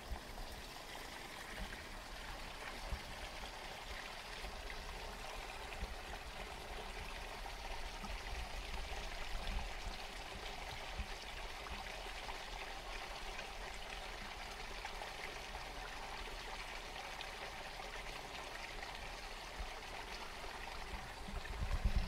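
Water of a small stream running steadily, with occasional low thumps.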